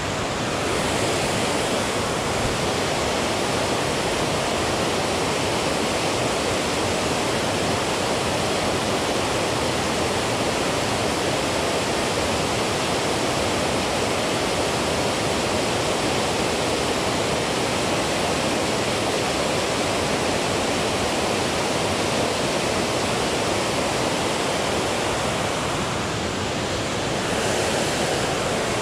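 Water pouring over a dam spillway: a steady, even rush of falling water.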